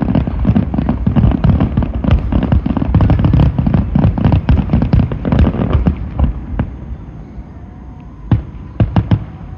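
Fireworks going off in a dense, rapid barrage of bangs and crackles for about six seconds. The barrage then thins out, and a few last separate bangs come near the end.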